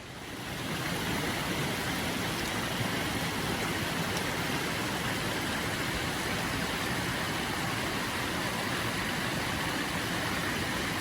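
Steady rush of flowing stream water, swelling in over the first second and then holding even.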